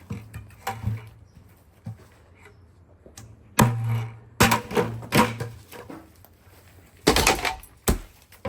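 Irregular hard wooden knocks and clatters, about eight of them, bunched around four to five seconds in and loudest in a cluster about seven seconds in, some leaving a short low hum behind.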